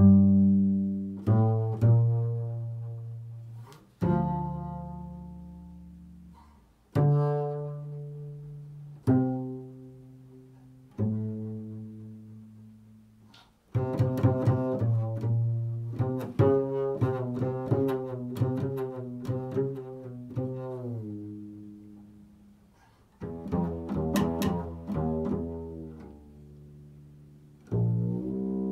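Solo double bass played pizzicato: single low plucked notes left to ring and die away, one every couple of seconds. About halfway through the playing quickens into a run of many plucked notes, drops back, then a second quick flurry comes near the end.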